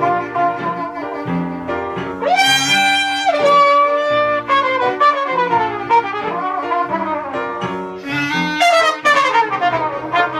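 Small live jazz band: a trumpet plays the lead melody over clarinet and piano accompaniment. The trumpet holds a high note about two seconds in, then plays falling runs.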